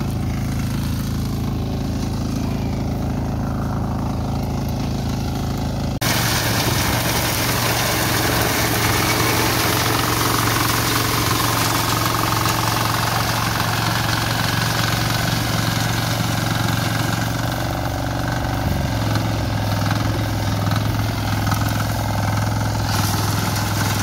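Small engine of a walk-behind wheat reaper running steadily as the machine cuts standing wheat. About six seconds in the sound jumps louder, with a hiss added over the engine, and the engine note changes slightly near the end.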